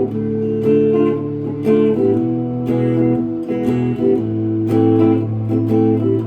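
Guitar strumming a three-chord A minor, D minor, E progression in open chords with a lilting island rhythm and many upstrokes; the chord changes about two and four seconds in.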